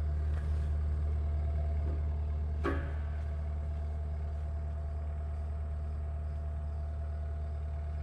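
An engine idling steadily: a constant low hum close by, with one short knock a little under three seconds in.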